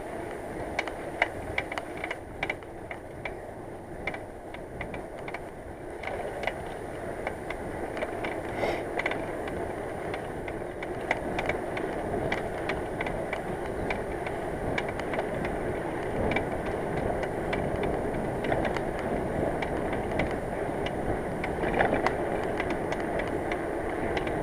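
Riding noise of a bicycle on the road: a steady rumble with frequent small rattles and clicks, growing slowly louder.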